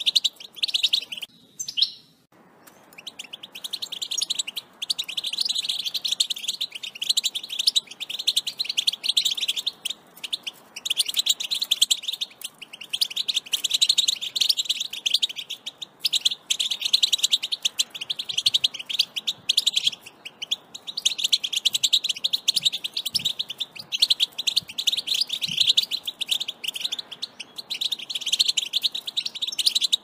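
European goldfinch singing: a long, rapid run of high twittering chirps and trills, broken by a few short pauses.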